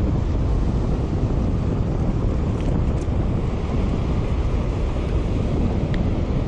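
Wind buffeting the microphone over the steady wash of breaking surf, a constant low rumble. A few faint clicks sound partway through.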